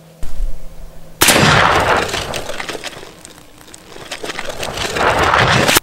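Suppressed Big Horn Armory Model 89 Black Thunder lever-action rifle in .500 S&W Magnum, fitted with a Barron suppressor, firing a 400-grain bullet into a can of beans. A low thump just after the start, then a sudden loud blast about a second in that turns into a long rushing noise, dips, swells again and cuts off near the end.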